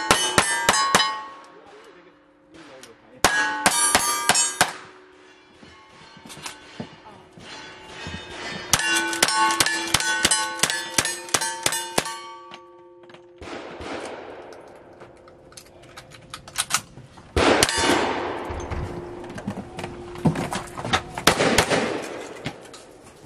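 Gunshots from a rifle and handguns hitting steel silhouette targets, each hit answered by a ringing clang of the steel. The shots come in four quick runs with pauses between them.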